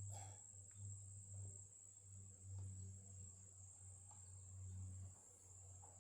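Faint insect sounds: a steady high-pitched cricket trill, with the low wing buzz of a hornet swelling and fading several times as it flies about near the microphone.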